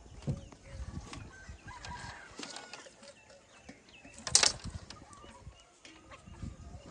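Chickens clucking faintly, with a short loud noisy burst about four and a half seconds in.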